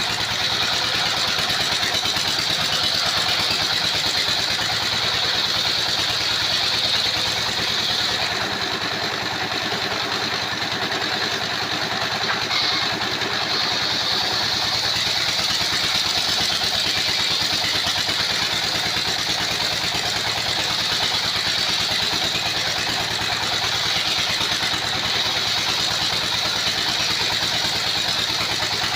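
Sawmill's engine-driven circular saw running steadily, an even engine drone with a steady high-pitched hiss over it that eases slightly in the middle.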